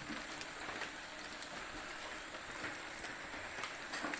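Steady hiss of water with scattered small ticks, like falling drops.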